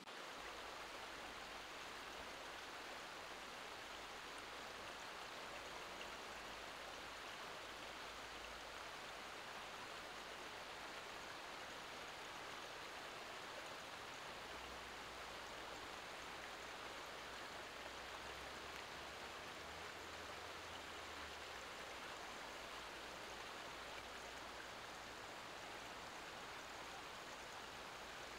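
Shallow, fast-flowing rocky mountain river rushing steadily over stones.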